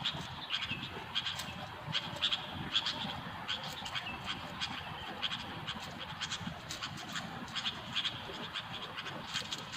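Sooty-headed bulbuls (kutilang) calling: a steady string of short, sharp calls, a couple each second, from a decoy bird and the wild birds drawn to it.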